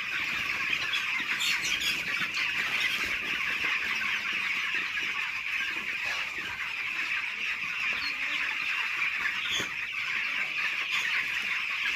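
A large flock of young broiler chickens, about 17 days old, peeping and chirping together in a dense, steady chorus.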